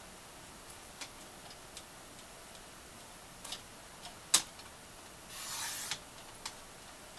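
Light clicks and taps of paper and crafting tools being handled, with one sharp click a little past four seconds and a short papery swish about a second later: cardstock being trimmed.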